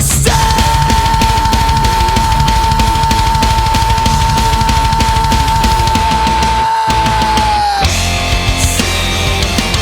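Loud heavy rock music with a fast, driving drum beat and one long high note held for about seven seconds that bends down and stops near the end.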